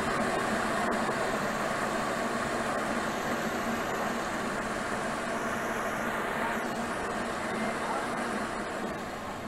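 Steady hubbub of a large arena crowd, many voices blending into one continuous din that eases slightly near the end.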